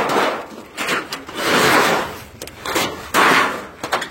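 Scrap aluminum siding being pulled and thrown from a pickup bed onto a scrap pile, scraping and rattling in three or four loud swells of clattering metal.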